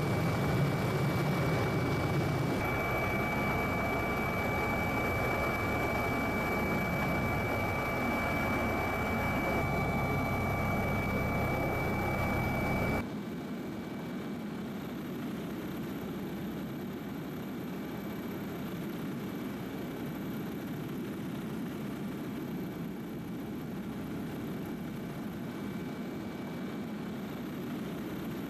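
Steady mechanical drone with a rushing noise, like an engine heard over wind. It changes abruptly twice and drops to a quieter, even rush about thirteen seconds in.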